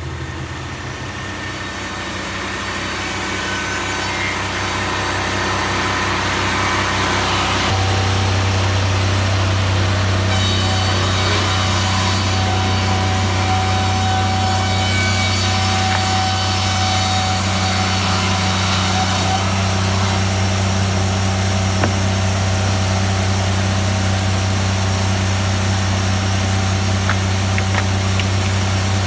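A sawmill running and sawing wood: a steady engine hum with the noise of the cut above it, growing louder over the first several seconds and then holding level.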